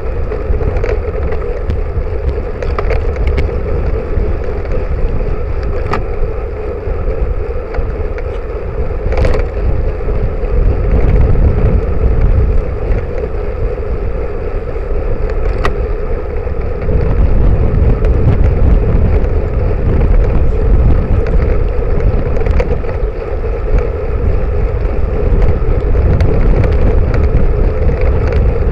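Wind buffeting and road rumble on a bicycle-mounted camera's microphone as the bike rides along the road, with a few sharp clicks and knocks. It gets louder about eleven seconds in and again past the halfway point.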